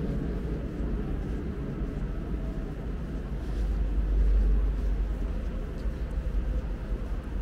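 Low, steady rumbling ambience in a vast underground salt-mine chamber, swelling briefly about four seconds in.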